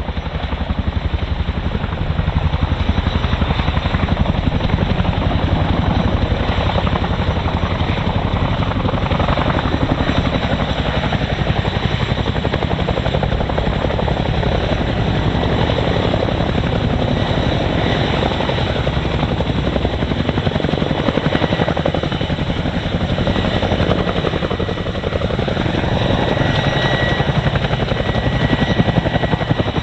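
Boeing Chinook twin-rotor helicopter flying a display pass, its rotors and turbine engines making a loud, steady roar with a fast rhythmic beat from the blades, swelling slightly near the end.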